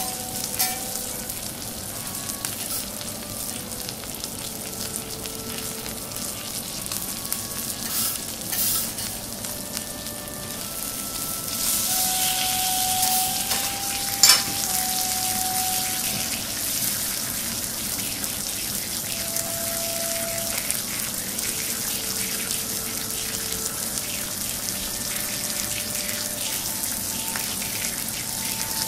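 Thick Akita beef steak sizzling in its own juices on a teppanyaki steel griddle: a steady frying hiss that grows louder about twelve seconds in. One sharp click comes a couple of seconds later.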